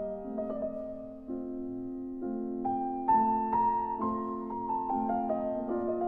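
Background piano music: a slow melody of single notes over held chords.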